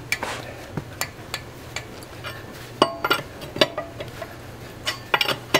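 Sharp metal clinks and clicks of a wrench and socket working on a wheel's lug nuts as they are tightened, about ten at irregular spacing, with a faint steady low hum beneath.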